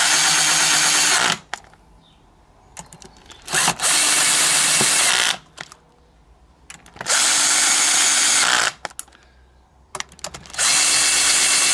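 Cordless drill driving in screws, run in four separate bursts of about a second and a half each, with a few clicks of handling between them.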